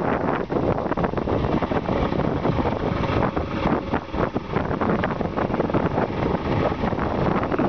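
Wind buffeting the microphone on a moving wooden fishing canoe, over the steady running of the boat's engine.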